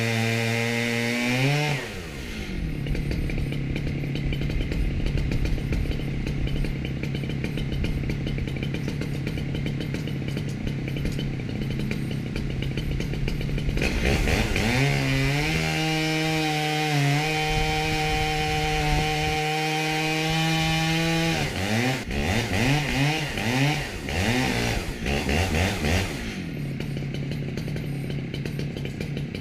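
Ported Stihl MS 880 two-stroke chainsaw at full throttle, milling a log lengthwise into planks. The engine pitch drops as the chain bites into the cut and holds steady under load, with the revs rising and falling several times about two-thirds of the way through before settling lower again.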